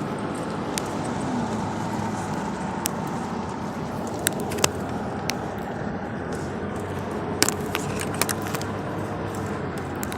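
Car cabin noise while driving uphill: steady engine and tyre noise, with a few scattered sharp clicks and ticks from inside the car.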